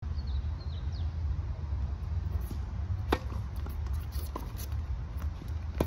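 Tennis ball struck by rackets during a rally: two sharp hits, about three seconds in and near the end, with a softer ball bounce between them. A steady low rumble of wind or distant noise runs underneath.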